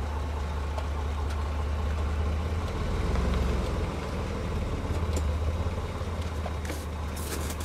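Tow vehicle's engine idling with a steady low hum as the vehicle reverses slowly up to a trailer hitch. A few faint clicks come near the end.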